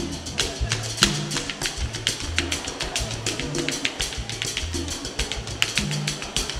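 Live Latin jazz mambo: a tap dancer's rapid, uneven tap-shoe clicks over low bass guitar notes.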